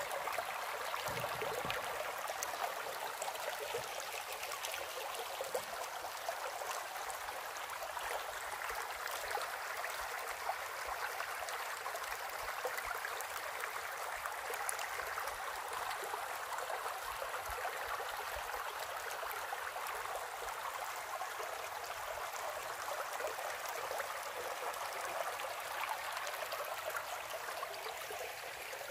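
Shallow, muddy stream rushing over stones and gravel in a steady babble.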